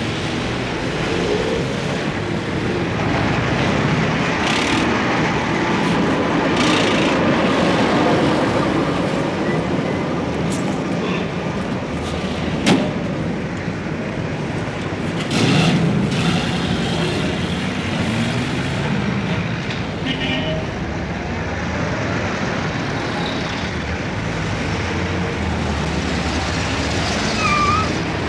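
Steady din of heavy road traffic: cars and trucks running past with low engine rumble and tyre noise, a few short hisses in the first half and the middle, and one sharp click midway.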